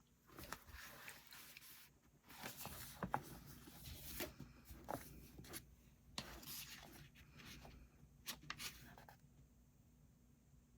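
Paper being handled: irregular rustling, scraping and small clicks, like a book being opened and its pages moved. They die down after about nine seconds.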